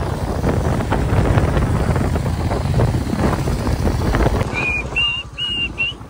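Wind buffeting the microphone over the rumble of a motorcycle ride. The noise drops about four and a half seconds in, and four short high whistling notes follow.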